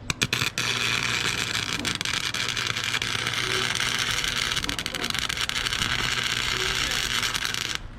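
Flux-core wire-feed welder arc crackling while laying a bead: a few short stuttering starts, then a steady frying sizzle for about seven seconds that stops abruptly near the end.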